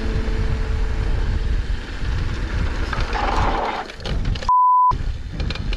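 Mountain bike rolling fast along a dry dirt singletrack: a steady low rumble of tyre and trail noise with wind on the helmet camera, the tail of background music fading out in the first second. About four and a half seconds in, a short steady censor bleep replaces all other sound for under half a second, then the riding noise returns.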